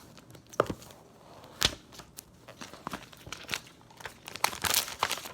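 Packaging crinkling and tearing in irregular crackles and rustles, busiest near the end, as a phone box is unwrapped.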